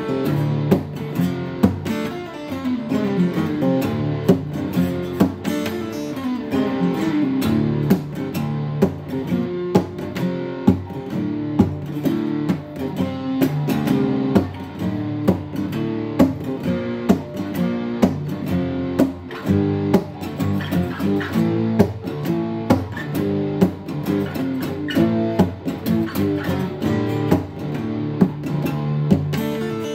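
Acoustic guitar being picked: a busy stream of single plucked notes and chords, with runs of notes stepping downward in pitch in the first few seconds.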